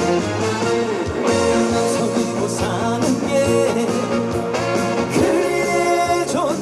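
Music: a song with band accompaniment and a singing voice.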